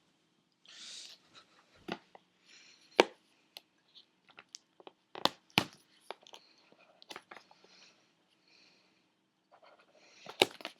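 Tape being worked off a cardboard product box by hand: crinkling and scraping, with several sharp clicks and knocks from the box being handled.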